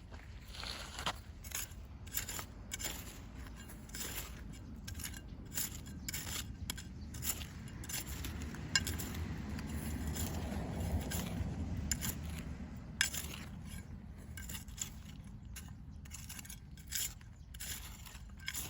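Irregular scraping and sharp clicks of hand work in the soil while potatoes are dug up. A low rumble swells in the middle and fades again.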